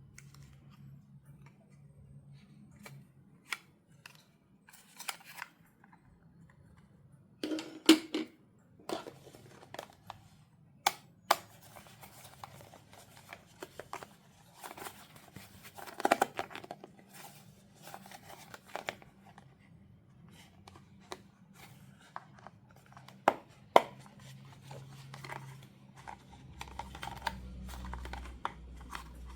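Toy packaging being opened and handled by hand: scattered clicks, taps and crinkling, with tearing and snipping sounds and a few sharper knocks.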